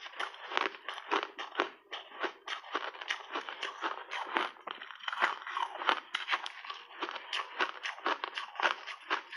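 Close-miked crunching of compressed snow ice being chewed: a dense, irregular run of crisp crunches, several a second.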